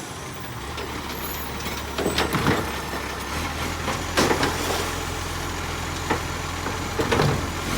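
Garbage truck engine idling with a steady low hum, with loud clattering bangs about two, four and seven seconds in.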